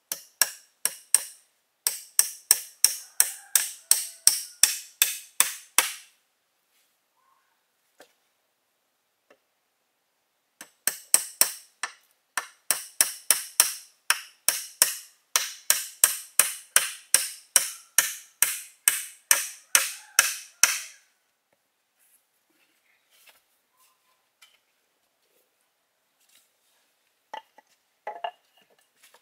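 Rapid, evenly paced strikes on bamboo, about three or four a second, each a sharp crack with a brief bright ring. They come in two long runs, break off for about five seconds between them, and stop about two-thirds of the way through, leaving only a few faint knocks.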